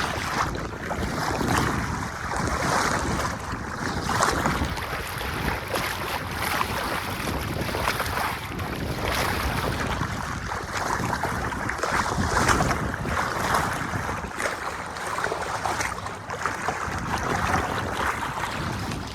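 Wind buffeting the microphone over water washing along the hull of a sailboat under way, in uneven swells every second or two.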